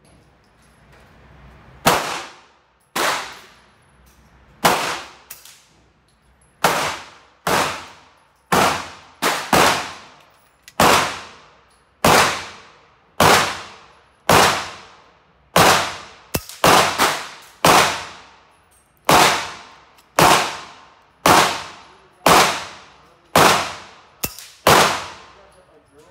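Repeated gunshots at an indoor shooting range, about one a second and now and then two close together, each a sharp crack with a short echoing tail.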